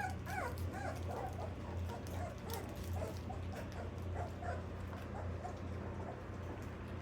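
Old English Sheepdog puppies whimpering and yipping in a quick string of short, high cries that thin out over the last couple of seconds, over a steady low hum.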